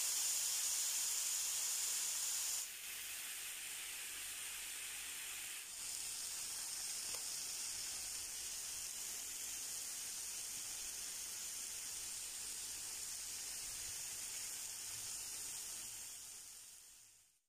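Marinated chicken breasts sizzling in olive oil on an electric griddle: a steady hiss that drops in level twice in the first six seconds and fades out at the end.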